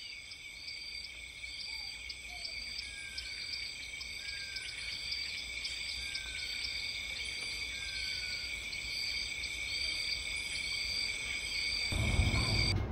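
Steady high-pitched chorus of insects in a meadow, with a regular chirp pulsing about one and a half times a second. Four short falling whistles sound through the middle, and a low rumble comes in near the end.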